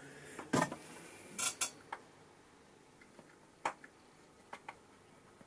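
A few light clacks and clinks of hard parts knocking together as a carved puppet is handled: a quick cluster in the first two seconds, then two or three single knocks later.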